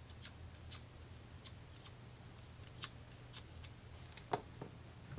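Faint scraping and light ticks of a bone folder drawn over the edges of small cardstock leaves to curl them, with one sharper tap a little past four seconds in.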